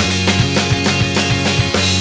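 A rock band playing live in an alternative-rock style: a drum kit keeping a steady, fast beat with cymbals, an electric bass holding low sustained notes, and electric guitar.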